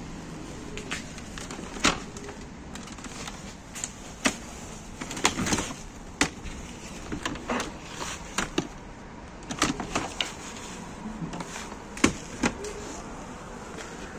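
Irregular knocks, clicks and clatters of junk being handled and shifted while rummaging through a dumpster, with one sharp, louder knock late on.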